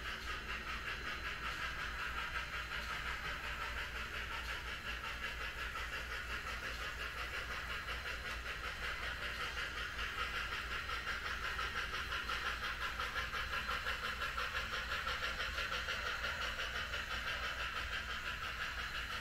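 HO-scale model steam locomotive and boxcars running across a model railroad diamond crossing, making a steady, rapidly pulsing running sound.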